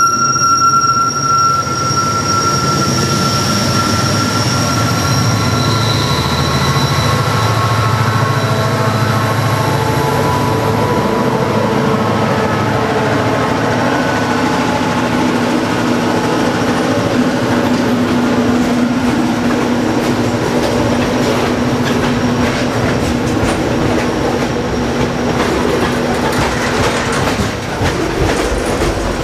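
Freight train wheels squealing on steel rails in several high tones that shift in pitch, over a steady rolling rumble, with clacking of wheels over rail joints toward the end.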